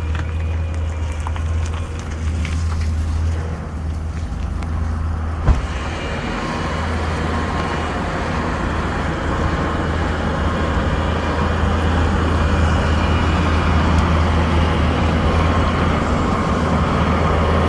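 Skid steer engine running steadily, with a sharp knock about five and a half seconds in. After the knock the sound turns fuller and grows slowly louder.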